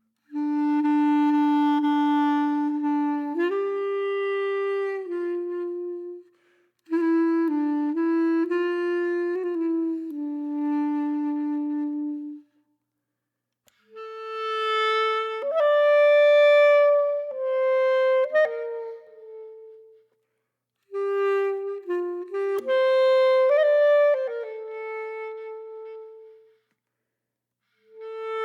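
Background music: a solo melody on a wind instrument, played in several phrases separated by short silences.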